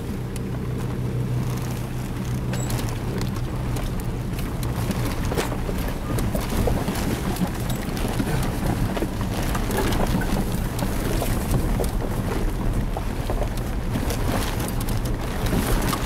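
Car engine running steadily, heard from inside the cabin, with scattered rattles and knocks as the car bumps along a rough dirt track.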